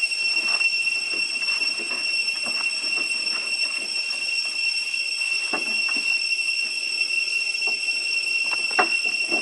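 Steady high-pitched drone of cicadas in the surrounding forest, with short scuffs and taps of macaques moving about on a wooden roof; the loudest tap comes near the end.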